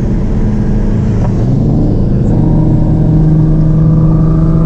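Twin-turbo Dodge Challenger SRT Hellcat's V8 heard from inside the cabin, cruising with a steady engine drone over road noise. The pitch rises gently over the second half as the car picks up a little speed.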